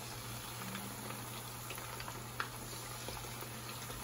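Cornflour-coated chicken pieces deep-frying in hot oil in a shallow pan: a steady sizzle and bubbling scattered with small crackles and pops.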